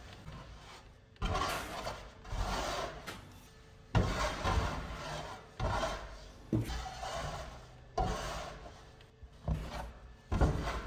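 Bread dough being pushed and dragged across a floured work table while it is shaped for a banneton, with a metal bench scraper scraping the table near the end: about eight rough scraping rubs, roughly one every second or so.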